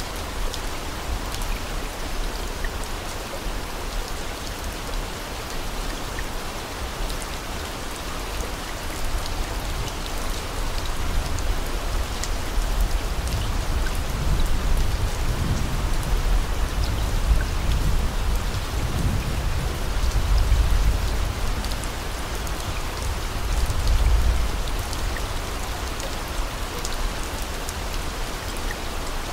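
Steady rain falling, a dense hiss flecked with small drop ticks. A deep low rumble swells and fades several times through the middle.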